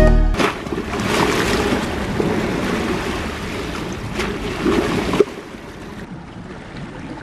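Choppy sea water surging and splashing against stone harbour steps, with swells in the rush. It drops sharply quieter about five seconds in, to a softer wash of water.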